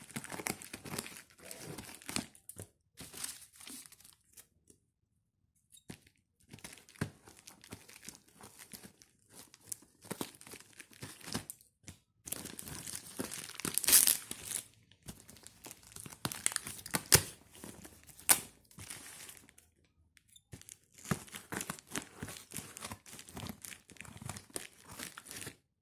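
Clear plastic stretch wrap on a cardboard shipping box crinkling and tearing in irregular bursts as it is pulled open by hand. There is a short pause about four seconds in, and the loudest tears come around the middle.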